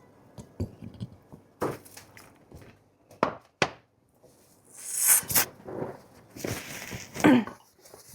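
A person eating close to the microphone: scattered sharp mouth clicks and smacks, then longer noisy chewing or slurping bursts about five seconds in and again about seven seconds in.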